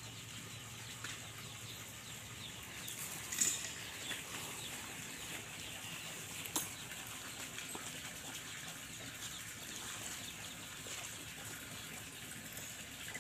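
Rural outdoor ambience: small birds chirping steadily, with chickens about. A sharp crack comes about three and a half seconds in, and a single click about six and a half seconds in.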